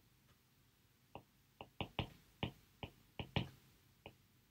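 Stylus tapping and clicking on a tablet screen while handwriting: about nine short, light taps in quick, irregular succession, starting about a second in.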